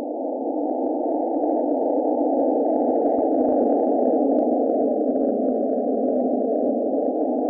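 A steady, grainy droning hum that swells up at the start and then holds at an even level: an ominous sound-design drone under the title cards.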